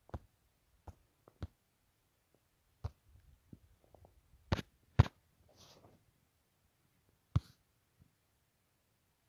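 Scattered faint clicks and knocks at irregular intervals with quiet between. Two sharper knocks come about halfway through and another about three-quarters in, and a brief soft hiss follows the louder pair.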